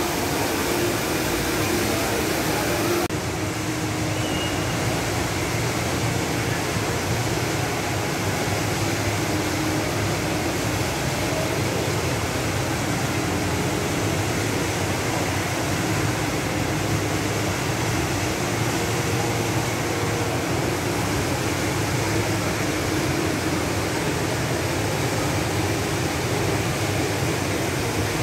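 Steady rushing of the Rain Vortex, Jewel Changi Airport's indoor waterfall, pouring from the dome into its basin.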